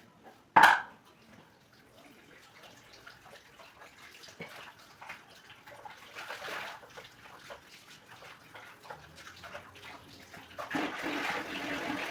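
Water running and splashing, with small clicks and clatter throughout and a louder stretch of splashing near the end. One sharp knock about half a second in is the loudest sound.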